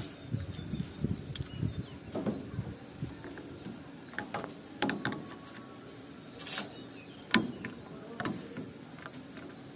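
PVC electrical conduit pipes being handled and fitted into couplings against the steel rebar mesh of a roof slab: scattered light knocks and clicks, irregular, with a short scraping hiss about six and a half seconds in.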